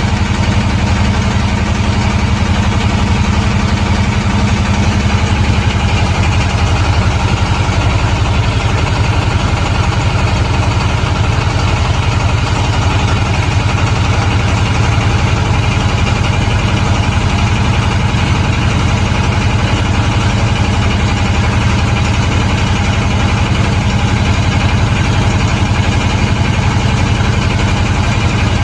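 Boat engine running steadily at low revs, with an even, fast throb and a deep hum at constant speed.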